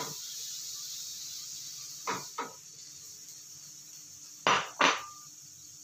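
A spatula knocking against the rim of a bowl and frying pan while shelled clams are scraped into the pan: two pairs of sharp knocks, the second pair loudest, the last leaving a short ring.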